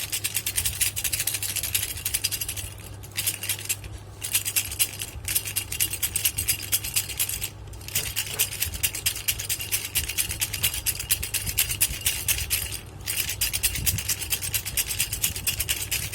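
Baby rattle shaken rapidly, a dense run of small clicking rattles with a few short pauses.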